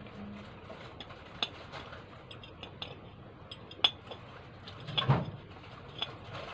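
A metal fork clinks and scrapes against a plate as spaghetti is twirled, with a handful of sharp clinks. The loudest clink comes just before four seconds in, and a heavier clatter about five seconds in.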